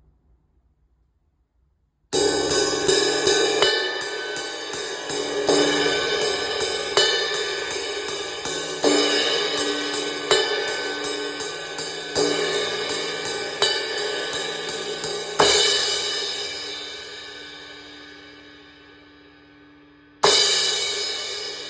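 Repaired Zildjian 18-inch A Custom crash cymbal being struck: first a quick run of light strokes, then crashes about every one and a half to two seconds over a continuous ringing wash. The wash is left to decay for several seconds before one last crash near the end.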